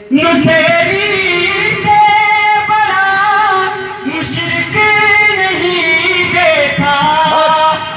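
A man singing a devotional manqabat solo, in long held, wavering notes. There are two phrases with a short break about four seconds in.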